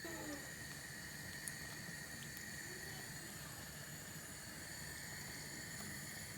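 Flour dumplings frying in a pan of hot oil, with a steady low sizzle. There is a single click about a second and a half in.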